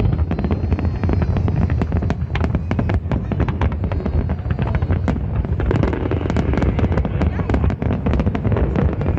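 Fireworks display: rapid, overlapping bangs and pops of many aerial shells bursting, over a continuous low rumble.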